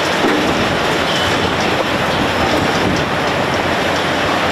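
Hydraulic demolition crusher on an excavator arm chewing through reinforced concrete: continuous crunching and grinding of breaking concrete and rebar, with brief high metallic squeals.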